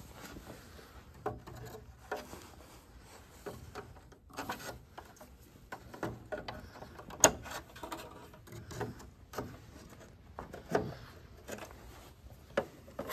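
Plastic fan cover inside a Hypertherm plasma cutter being worked loose by hand: scattered clicks, taps and rubbing as its plastic clips are pressed and pulled, with one sharp click about seven seconds in.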